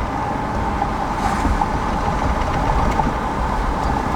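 A vehicle running, a steady low rumble with a constant mid-pitched hum.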